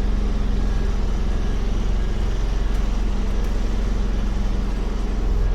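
A bus engine running steadily as the bus reverses slowly, heard from inside the bus: an even, low hum.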